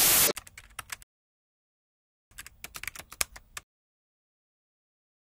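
A loud burst of static hiss cuts off abruptly, followed by typewriter key clacks in two runs: a few strikes just after the hiss, then after a pause about a dozen more, a typewriter sound effect for a title being typed out.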